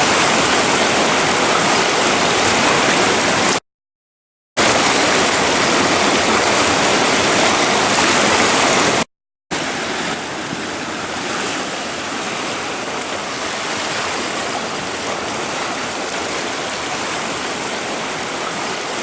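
Floodwater rushing through a swollen creek, a steady noise of fast-flowing water. It drops out briefly twice, about four seconds in and about nine seconds in, and comes back a little quieter after the second break.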